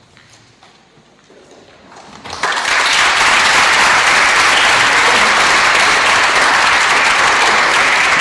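Audience applause breaking out suddenly about two and a half seconds in and going on steadily and loud; before it, only faint handling sounds.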